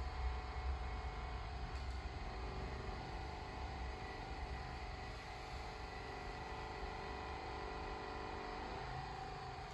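Steady low hum and hiss of room noise, with a low rumble in the first few seconds that fades out.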